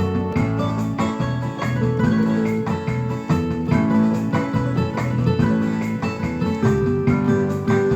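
Background music: keyboard-led instrumental with sustained notes and a steady pulse.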